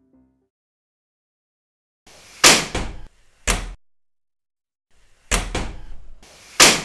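Four loud bangs on a door in two pairs, each a sharp hit with a short ring after it.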